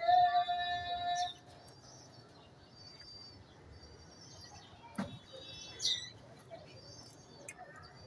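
Small birds chirping faintly, after a loud, steady pitched call that stops about a second in. A single sharp click comes about five seconds in.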